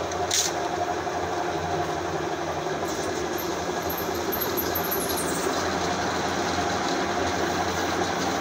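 Electric coil winding machine running steadily, spinning a transformer bobbin as copper enamelled wire is wound on. A short click about half a second in.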